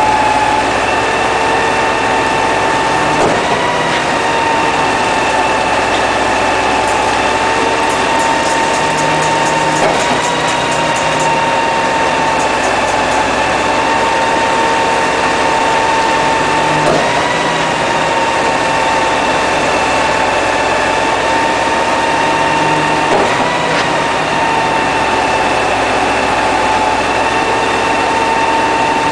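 Concrete boom pump truck running steadily with a constant whine. A faint knock sounds about every six to seven seconds, each time with a slight lift in pitch.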